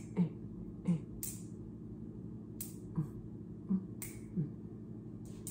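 About nine sharp clicks or snaps at irregular spacing, the loudest in the first second, over a steady low hum.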